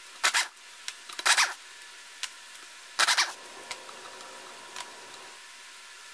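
Sharp metallic clicks and clinks of hand tools and small parts, in three quick clusters with a few lighter ticks between, as ignition parts are worked off an outboard motor's powerhead.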